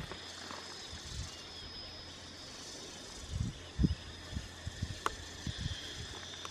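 Hand digging in loose soil: dull, irregular thuds and scrapes as dirt is loosened with a bamboo stick and scooped out by hand, with a sharp click about five seconds in, over a steady high background hiss.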